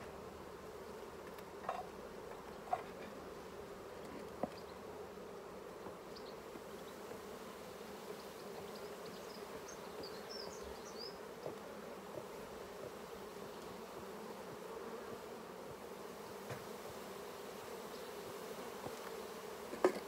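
Honeybees humming steadily around an open hive; the colony is a bit annoyed from being kept open too long. A few light knocks come in the first few seconds.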